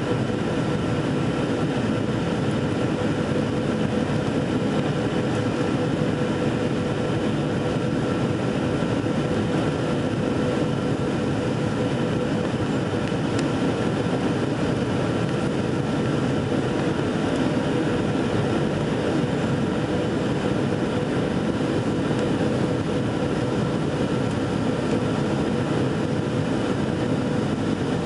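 Jet airliner cabin noise on final approach: the engines and rushing airflow make a steady roar with a faint, even hum through it.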